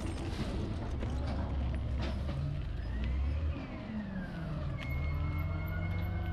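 Heavy truck engine running with a steady low rumble, while a siren wails slowly up and down over it.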